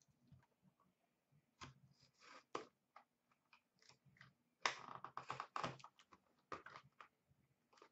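Faint scratching, rustling and tapping of hands working at a sealed cardboard box of hockey cards, trying to cut it open; a denser run of scrapes and clicks comes about five seconds in.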